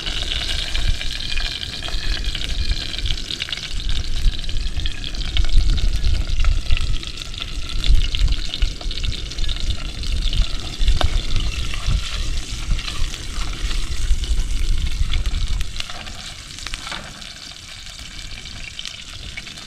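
Hot oil sizzling as food fries in a pan, with a few clicks of stirring. The sizzle turns quieter about three-quarters of the way through.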